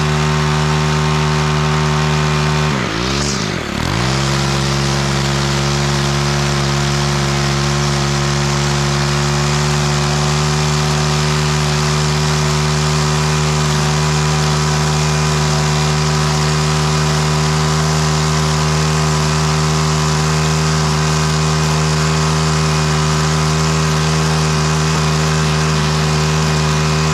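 Gas string trimmer engine held at steady high revs while edging a lawn. About three seconds in, the revs drop briefly and then pick back up.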